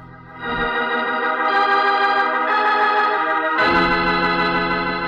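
Organ music cue of held chords, swelling in about half a second in and moving to a fuller chord with a deeper bass near the end.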